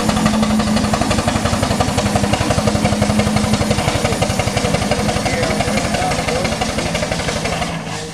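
Small-scale steam traction engine running as it drives along, with a rapid, even beat. It fades near the end as the engine pulls away.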